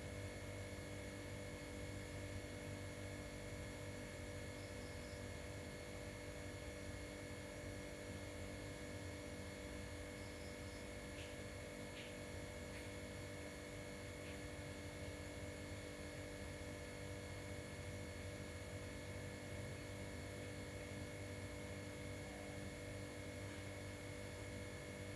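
Faint, steady electrical hum with several steady higher tones above it, and a few faint clicks about halfway through.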